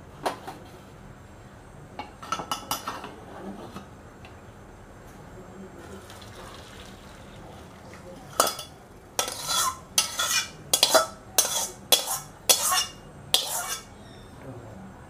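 A metal spatula scraping and knocking against a metal wok as boiled noodles are pushed out into a colander. There are a few clinks in the first seconds, then a quick run of about ten loud scrapes in the second half.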